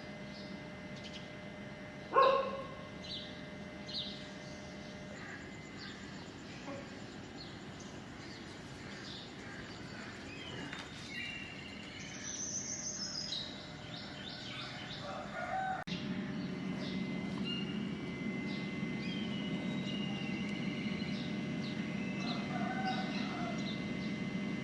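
A dog barks once about two seconds in. Then birds chirp faintly and intermittently in the background, over a low steady noise that grows louder about two-thirds of the way through.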